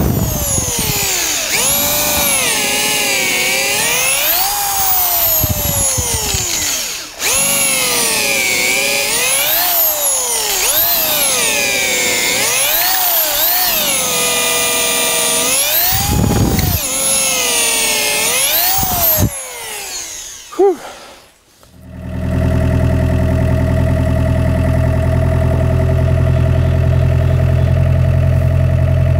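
Cordless drill boring a long bit through a wooden post, its motor pitch rising and falling again and again as the bit loads and frees, with a brief break about seven seconds in. It stops about two-thirds of the way through, and an excavator engine then idles steadily.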